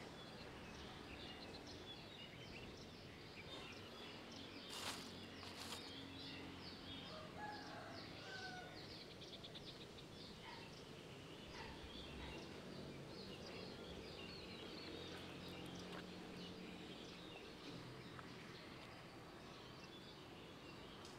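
Faint outdoor ambience with many small birds chirping steadily in the background, a couple of sharp clicks about five seconds in, and a few soft whistled calls a little later.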